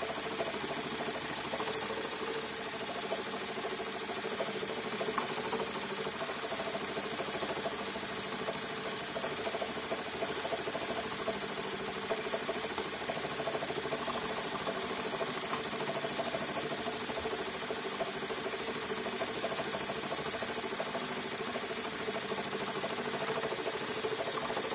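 JACK JK-T1906 computerized pattern tacker sewing a programmed stitch pattern at a speed setting of 800 stitches a minute: a steady, rapid mechanical clatter of the needle bar and moving clamp that runs on without a break.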